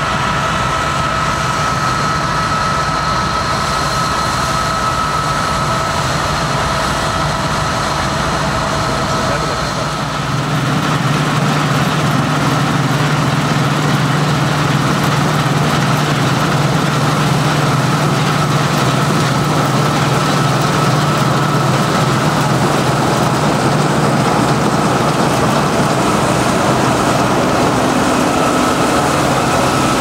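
Claas Dominator 85 combine harvester running steadily while harvesting grain: an engine drone with a steady high whine over it. The sound grows louder and deeper about ten seconds in.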